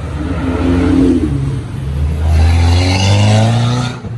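A luxury car's engine revving loudly as the car accelerates, its pitch climbing steadily through the second half before the sound drops away near the end.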